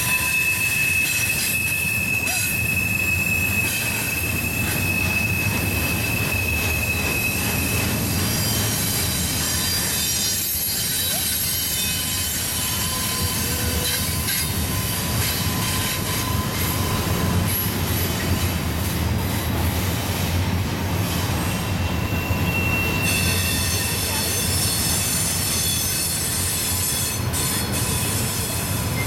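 Double-stack intermodal freight cars rolling past on a sharp curve: a steady rumble of steel wheels on rail. A high wheel-flange squeal is held for the first several seconds and comes back briefly later, with a lower squealing tone in the middle.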